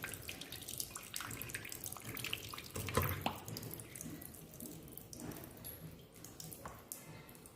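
Water splashing and dripping in a sink as a cockatiel bathes: many small splashes and drips, with one louder splash about three seconds in, growing quieter toward the end.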